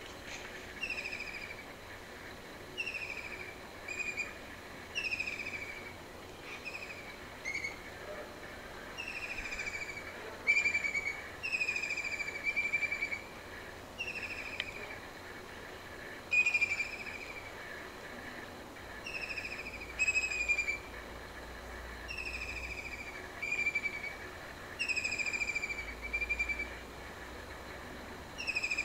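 A bird calling over and over: short falling calls about one to two seconds apart, often two in quick succession, over faint steady background noise.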